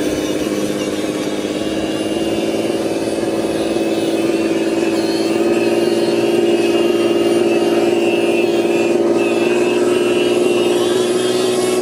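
Radio-controlled dump truck's drive running under load: a steady motor-and-gearbox whine that steps up slightly in pitch twice as it drives on.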